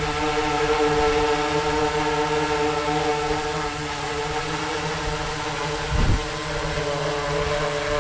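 Sky-Hero Spyder 6 hexacopter hovering, its six T-Motor MN 4120 motors on APC 16x5.5 props giving a steady, multi-toned hum. A short low thump comes about six seconds in.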